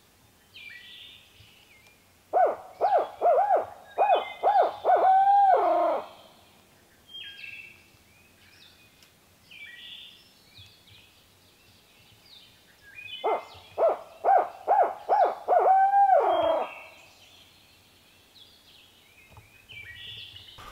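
Imitated barred owl hoot from a turkey hunter, used as a locator call to make a gobbler answer: two loud runs of about six quick hoots, each ending in a long falling note. Faint songbird chirps between the runs.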